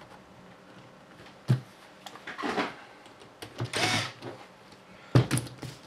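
Small tools and plastic kit parts handled on a workbench: a few sharp clicks and knocks, with two short scraping or rustling noises in between.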